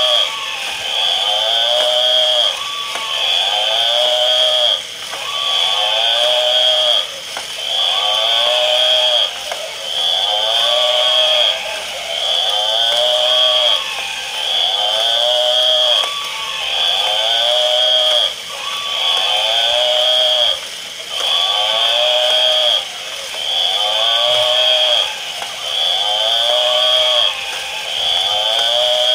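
A battery-operated animal toy's electronic sound effect playing on a loop: a high steady tone with a wavering call beneath it, repeating about every two seconds.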